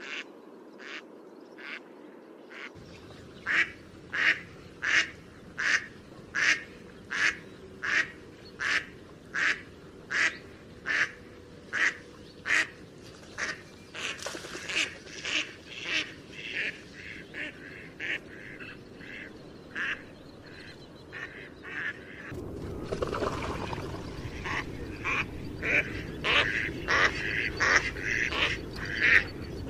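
Waterfowl calling: a steady run of short quacking calls, a little more than one a second, then quicker, overlapping calls from several birds. About two-thirds through, a louder rushing background comes in under the continuing calls.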